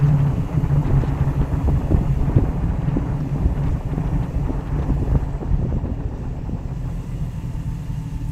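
Jeep Wrangler driving at low speed, its engine and tyre noise heard from inside the cab as a steady low drone with some wind on the microphone; the sound eases slightly toward the end as it slows.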